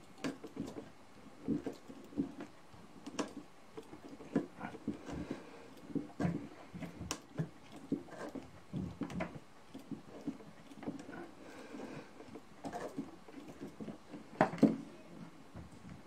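Awl of a Victorinox Trailmaster pocket knife twisted by hand as it bores a hole through a wooden stick: a run of short, irregular creaks and scrapes of steel working into wood, with a louder cluster near the end.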